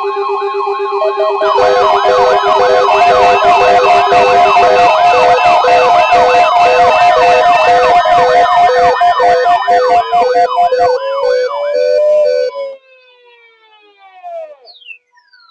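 A loud stack of electronic alarm sounds playing at once: a fast warbling siren, on-off beeping tones and steady tones, over rapid ticking. It cuts off suddenly about thirteen seconds in, leaving a few fainter falling whistles.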